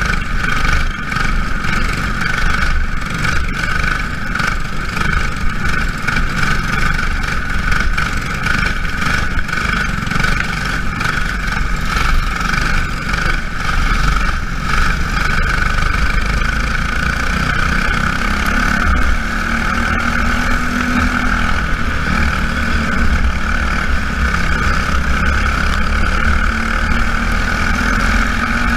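Race car engines running hard and steadily during a feature race, a continuous drone with no let-up.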